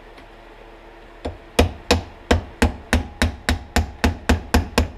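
Hammer tapping a punch against the metal seal collar of a Fox 2.0 air shock: about a dozen quick, sharp, evenly spaced taps, roughly three to four a second, starting about a second and a half in. The taps drive the seal and its collar down to expose the lock clip underneath.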